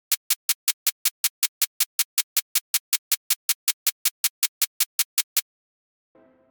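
Short white-noise sample repeating as a rapid, even train of crisp noise ticks, about five a second, stopping about five seconds in. This is the noise burst used as the sidechain trigger that keeps the pluck's transient out of the reverb.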